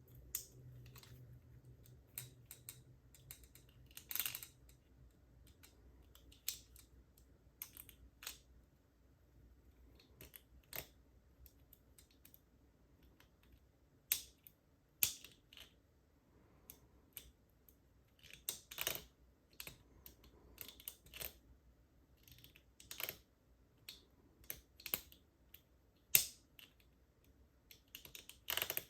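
Lock pick and tensioner working the levers inside a Squire 660 lever padlock: irregular light metallic clicks and scrapes as the levers are lifted one by one.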